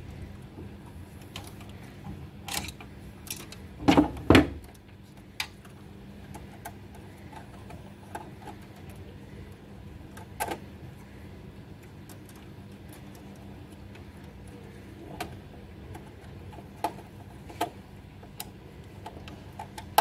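Screwdriver and wire clicking and tapping against plastic terminal blocks and panel components as a phase wire is fitted and its terminal screw tightened, with two louder knocks about four seconds in. A faint steady hum lies underneath.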